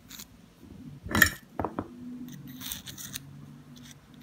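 Small metal clicks and light scraping from a heat-set insert tip and its knurled collar being fitted onto a soldering iron; one sharp click about a second in is the loudest, with a second click just after it.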